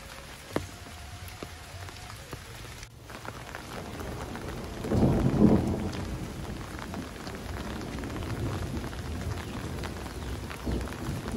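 Steady rain falling on foliage and ground, louder after about three seconds in. A low rumble swells about five seconds in and then eases back under the rain.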